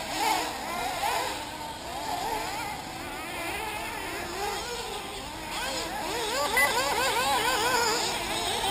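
Several 1/8-scale nitro RC buggy engines on the track at once, each one's high whine rising and falling over and over as the cars accelerate and back off. The revving gets busier and more regular in the second half.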